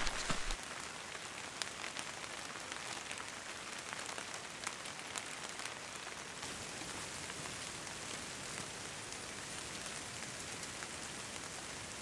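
Steady rain falling through a forest canopy, an even hiss with many individual drops ticking close by.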